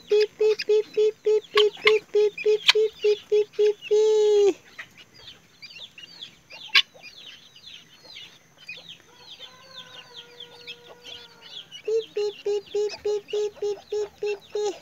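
Helmeted guineafowl hen giving a loud, rapid rattling alarm call of about four notes a second, once for the first four seconds and again near the end: the hen is agitated at someone close to her keets. Guineafowl keets peep throughout with quick, high, falling chirps.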